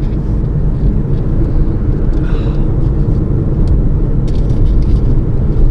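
Steady road and engine noise heard inside a moving Lexus's cabin: a low, even rumble, with a few faint clicks in the second half.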